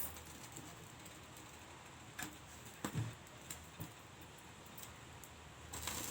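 A few light clicks and knocks as whole oiled brinjals are set and shifted on a metal grill over a gas burner: single clicks about two and three seconds in, another near four seconds, and a small cluster near the end, over a faint steady hiss.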